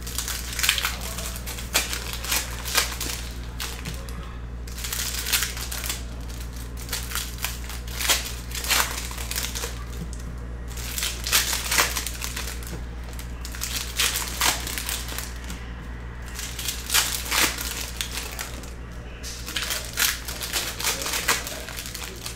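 Trading-card pack wrappers crinkling and tearing as packs are opened by hand: irregular crackly rustles over a steady low hum.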